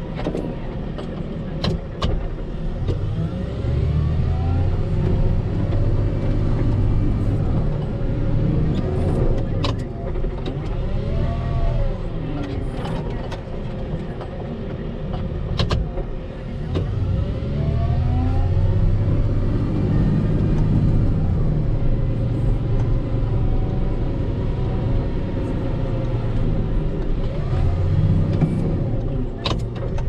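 Volvo L60H wheel loader's diesel engine, heard from inside the cab, working as the V-plow pushes through deep snow drifts. Its note swells and rises under load several times, then eases off. A few sharp knocks come through, the first about a second in.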